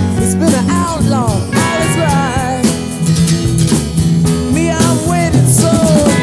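Rock band recording: guitars, bass and drums playing at a steady beat, with sliding, bending melodic lines over the chords.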